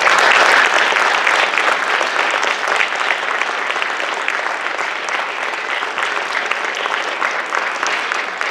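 Audience applauding as a performance ends: dense clapping that breaks out abruptly, is loudest at first, then eases slightly and keeps going.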